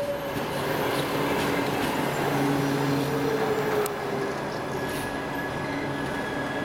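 Passenger coaches rolling slowly past as the train pulls in, a steady rumble of wheels on rail with squeals: a tone that slides slightly down about three seconds in, and a thin high squeal from about four seconds on.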